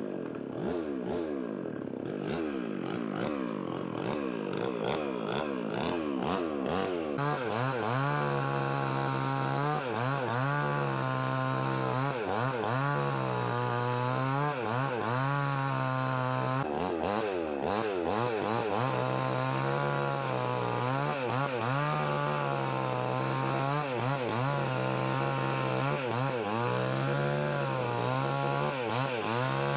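Gasoline chainsaw with a 20-inch bar running at high revs, its pitch dipping and recovering over and over as it works through wood under load.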